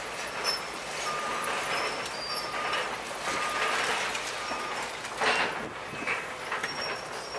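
Demolition by hydraulic excavators: a continuous clatter of crushing and falling building debris, with a few short, steady high tones in the first half and a louder crash about five seconds in.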